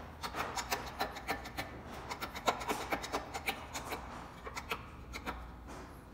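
Rapid, irregular metal clicks and rubbing as a hydraulic shop press drives a socket down to press the rear bearing onto an alternator rotor shaft.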